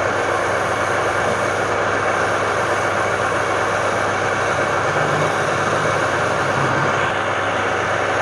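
Wood lathe running steadily: a constant motor hum under an even rushing noise.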